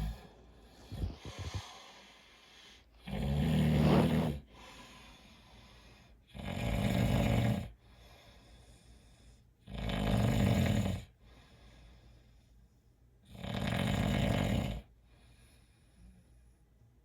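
A man with a cold snoring: four loud snores about three and a half seconds apart, each lasting a little over a second, with quiet breaths between.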